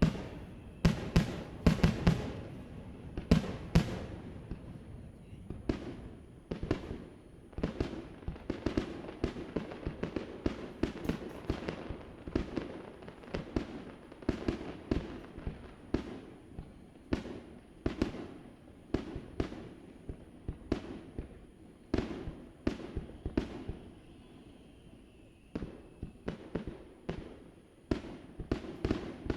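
Aerial fireworks going off in a long, irregular series of bangs and booms, each followed by a low rumble. The bursts come thickest in the first few seconds, thin out to a lull a little after the middle, and pick up again near the end.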